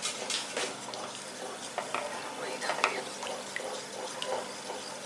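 Wooden spatula stirring a thick tomato sauce in a dark coated pan, with irregular scrapes and clicks against the pan and the sauce bubbling as it comes up to the boil.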